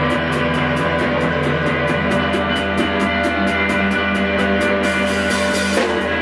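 Live rock band playing loud: electric guitar and bass holding a sustained, droning wall of sound while the drummer keeps a steady cymbal beat of about five strokes a second. A falling pitch slide comes in near the end.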